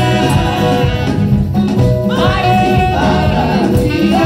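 Live gospel praise-and-worship music: women's voices singing through microphones and a PA, with a group of singers behind them and instrumental accompaniment that includes keyboard.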